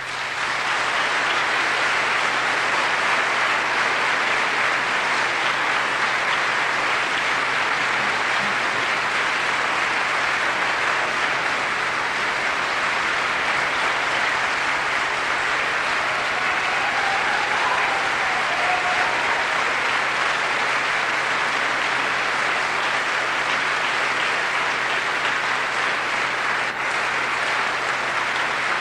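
Audience applauding steadily at the end of a live orchestral performance.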